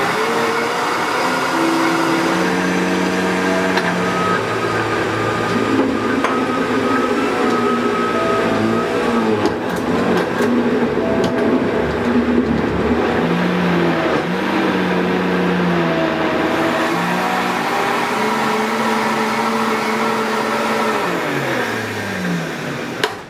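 High-speed countertop blender (FORCM Classic CM-410B) running and puréeing pear, apple and garlic, its motor whine rising and falling as the speed dial is turned. Near the end the pitch slides down and the motor winds down and stops.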